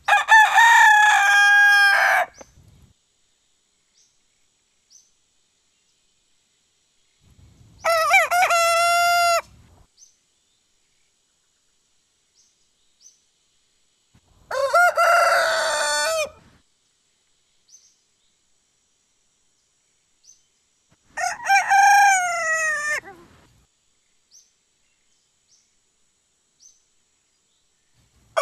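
Roosters crowing: four separate crows of about two seconds each, roughly seven seconds apart, with near silence between them.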